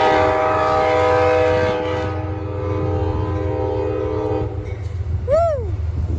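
Amtrak P32AC-DM locomotive's multi-chime air horn sounding one long blast over the rumble of the passing train, stopping about four and a half seconds in. Near the end there is a short call that rises and falls in pitch.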